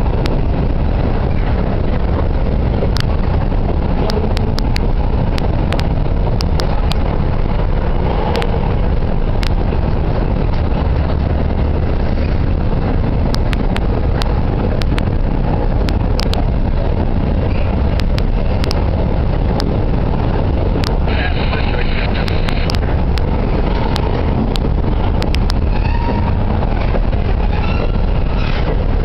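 Covered hopper freight cars rolling slowly past on the rails: a steady low rumble from the wheels and trucks, with sharp irregular clicks and clacks throughout.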